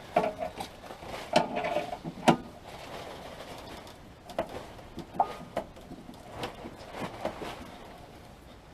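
Irregular metal clanks and knocks from tools and a car jack as a vehicle body is being levered and jacked up. The loudest come about a second and a half and two seconds in, some with a short metallic ring, followed by lighter scattered taps.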